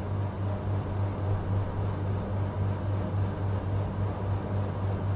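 A steady low machine hum with a fainter hiss over it.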